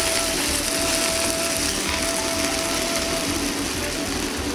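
Steady kitchen background hiss with a thin hum that breaks off and comes back several times.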